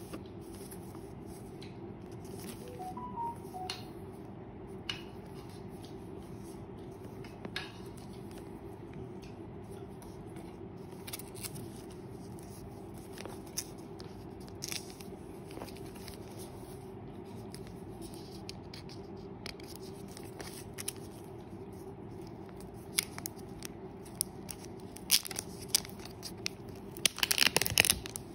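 Fingers handling a shrink-wrapped cardboard phone box, with scattered small taps and clicks, over a steady low hum. Near the end the clear plastic wrap is torn and peeled off in a loud crinkling rush.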